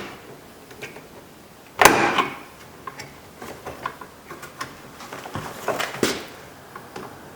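Plastic interior door trim being pried off with a screwdriver: small clicks and scrapes, with a sharp snap about two seconds in and another near six seconds as retaining clips pop loose.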